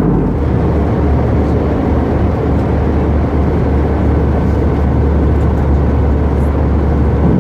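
Steady cabin noise inside an Airbus A319 airliner in flight: the even rush of engines and airflow, with a deep low hum that comes in just after the start and stops shortly before the end.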